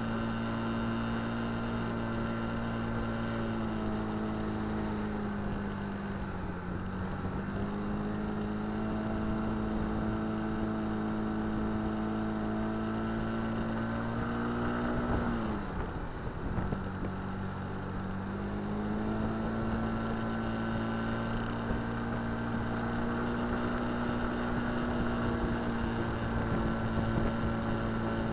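Kymco Dink Street scooter's engine running on the move with a steady drone, easing off briefly about six seconds in and more sharply about sixteen seconds in, then picking back up. Wind rushes past throughout.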